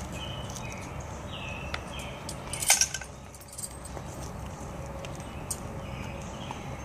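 Metal bridle hardware (bit, rings and buckles) jingling and clinking as a horse is bridled, with a bright cluster of clinks a little under three seconds in.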